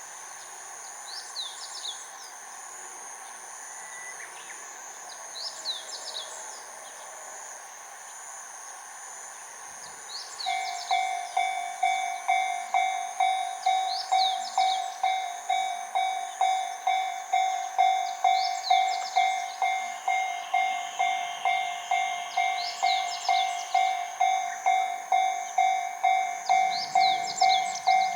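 Steady insect buzzing with occasional short bird-like chirps, then about a third of the way in a level crossing's warning bell starts ringing at a steady beat of roughly two to three strikes a second: the signal that a train is approaching.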